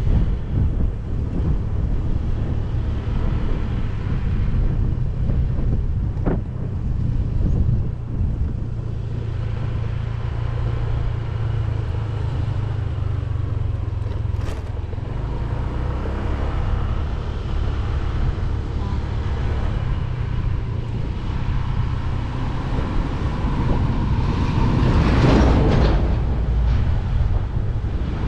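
Motorcycle running at riding speed: a steady low engine drone under wind rumble on the microphone, with a brief louder swell of noise near the end.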